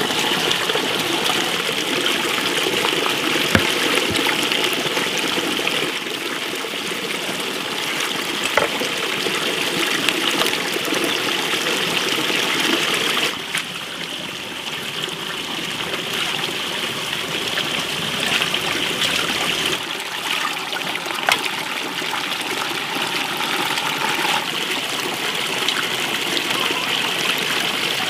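Tap water pouring steadily into a full basin, with a few sharp clicks now and then as mussel shells are handled.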